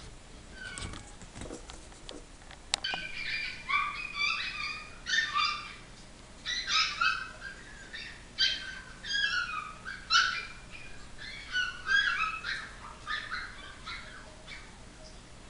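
Chihuahua puppies whining and yelping in a long run of short, high, falling cries, a few each second. At the start there are a few knocks from the camera being handled.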